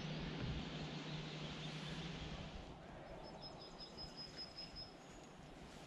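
Faint outdoor background: a steady hiss with a low hum that drops away about halfway in, after which a small bird sings a high, thin trill of quick repeated notes for about two seconds.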